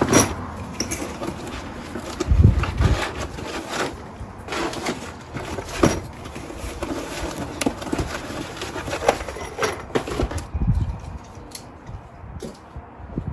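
Parts being unpacked by hand: cardboard boxes and bagged metal parts handled and set down, with scattered clicks and clinks and two dull thumps, one about two and a half seconds in and one about ten and a half seconds in.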